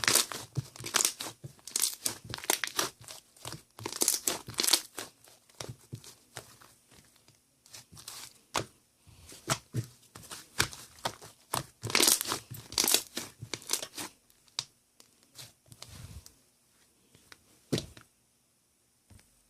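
Irregular crinkling and tearing, as of packaging or paper being handled and torn, in dense crackly clusters that thin out and stop shortly before the end.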